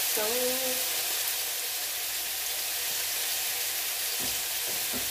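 Chopped tomato, onion and garlic frying in oil in a non-stick pan, a steady sizzle, with a couple of soft knocks near the end.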